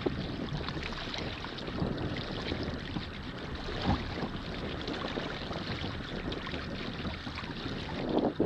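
Wind buffeting the microphone over water lapping and splashing against a sailing kayak's hull, with one brief louder slap of water about four seconds in.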